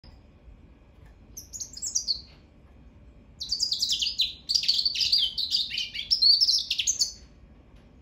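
Hybrid goldfinch × African canary singing: a short phrase of rapid high twittering, a pause, then a longer run of quick notes, many sliding down in pitch, lasting nearly four seconds.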